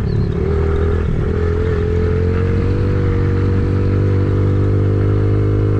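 An engine running steadily, its pitch rising a little over the first few seconds and then holding level.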